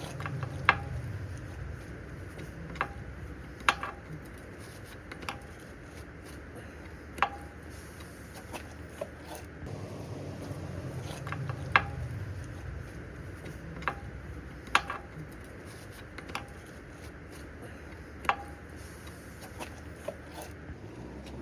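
Irregular sharp metallic clinks and taps of tools on steel parts during work on an excavator's front axle, about a dozen over the stretch, each ringing briefly, over a low steady rumble.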